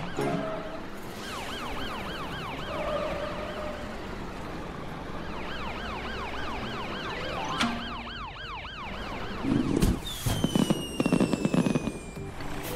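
Cartoon ambulance siren wailing in quick rising-and-falling sweeps, about three a second, which fade out and return. Near the end, fireworks go off: a bang, then dense crackling with a whistle slowly falling in pitch.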